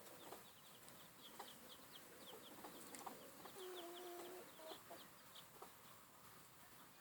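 Baby chicks peeping faintly, many quick high downward-sliding peeps in rapid succession that die away about five seconds in. A brief low steady tone sounds about four seconds in.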